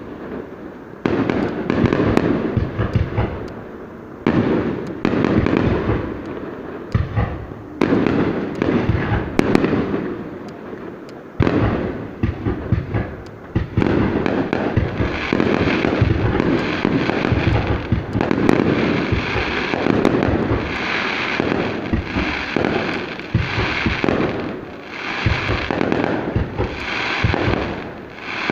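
Aerial fireworks going off, a dense run of bangs and crackling that comes in sharp bursts every couple of seconds and turns into near-continuous crackle in the second half.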